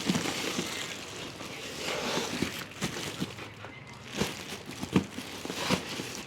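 Packaging of a modem crinkling and rustling as it is handled and opened, with a few sharp clicks or knocks about four to six seconds in.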